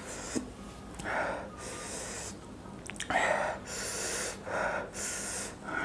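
A man breathing hard through his mouth between bites of hot green chillies: several hissing breaths in and out, the sucking-air reaction to the chilli burn.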